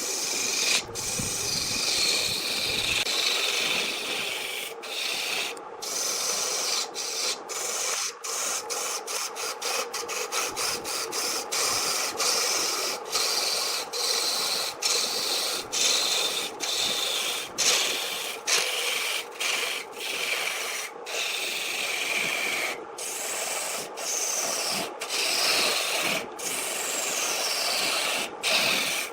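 Wood spinning on a lathe being worked, a steady rasping and rubbing broken by many short gaps. Faint falling whistling tones come in now and then.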